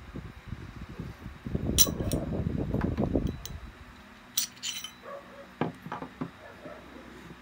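Metal parts of a Tisas 9mm pistol being handled: sharp metallic clicks and clinks, two about two seconds in and two more midway, with rubbing and handling noise between them.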